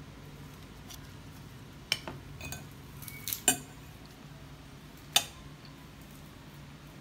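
Metal spoon and fork clinking against a plate of rice and a soup bowl during eating: a few short, sharp clinks, the loudest about halfway through.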